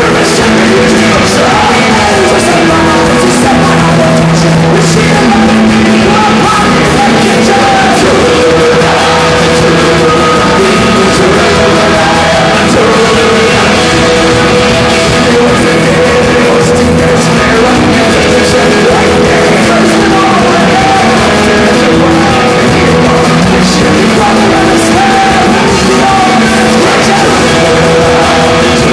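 Loud Irish folk-rock band music, playing steadily throughout, with vocals.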